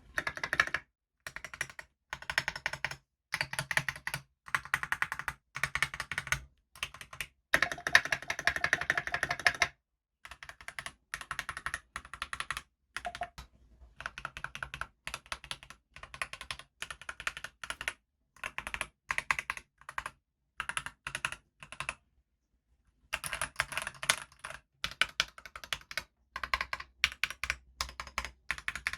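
Typing on a stock Keychron V1 tray-mount mechanical keyboard, its keys clacking in quick runs of one to two seconds with short pauses between them.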